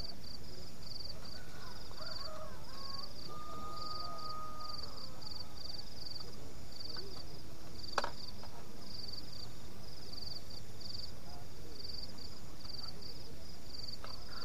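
Crickets chirping at night in a steady chorus of short high pulsed trills repeating a few times a second, over a low background hiss, with one sharp click about eight seconds in.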